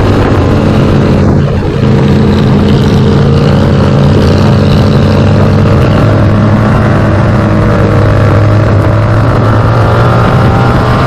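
Motorcycle engine running at a steady pace under way, its pitch rising slightly near the end.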